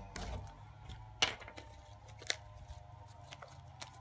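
Glittery borax slime being kneaded and gathered up by hand, giving off irregular small clicks and pops, with two louder clicks about one and two seconds in.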